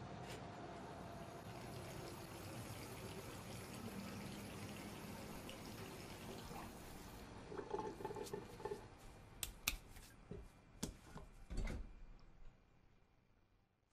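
A faint steady hiss of room ambience. From about halfway through come a string of clicks, knocks and splashes at a bathroom sink, with a heavier low thump near the end.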